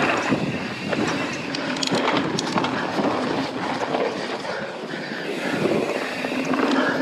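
Mountain bike rolling along a dirt singletrack trail on Bontrager XR4 tyres: a steady rumble of tyres on the ground, with the bike rattling and a few sharp knocks about two seconds in.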